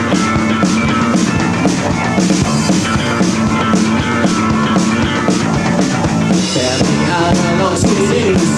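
A rock band playing live: drum kit keeping a steady beat under guitars, an instrumental stretch between sung lines.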